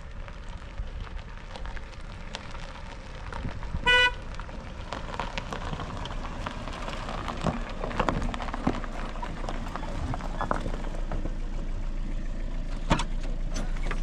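Car horn tooting once, briefly, about four seconds in, as a sedan comes up a gravel dirt road; its tyres crunch over the stones under a low engine, with a sharp knock near the end.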